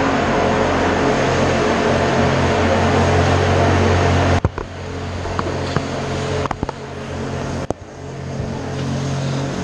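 Steady machine hum, then a sudden knock about halfway through as the camera is lifted off its mount, followed by a quieter, muffled stretch with several handling knocks and clicks.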